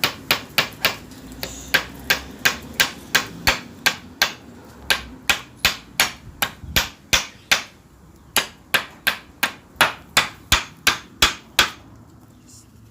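Hammer driving nails into wooden planks: a long run of steady blows at about three a second, with a short pause about eight seconds in. The blows stop near the end.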